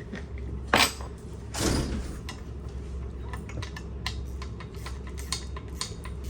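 Small metal hand-tool and parts clicks during assembly work: a sharp knock about a second in, a short scrape, then quick irregular ticking like a ratchet or screwdriver working screws, over a steady low hum.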